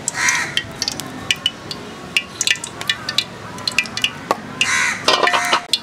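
Soybean oil crackling and spitting as it heats in an aluminium karai, a scatter of sharp ticks. A crow caws loudly near the start and again near the end.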